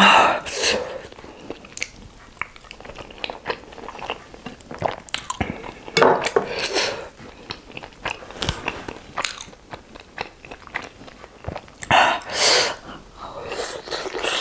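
Close-miked chewing and biting of steamed chicken momos, with wet mouth clicks and smacking throughout. Three louder breathy sounds come at the start, about six seconds in and about twelve seconds in.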